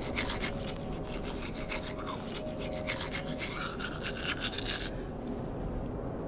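A toothbrush scrubbing teeth in quick back-and-forth strokes, stopping about five seconds in.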